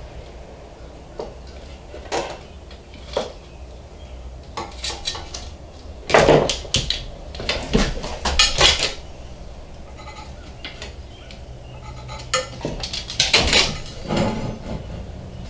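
Metal parts and tools clanking and scraping while they are handled, in irregular clusters, loudest about six and again about thirteen seconds in.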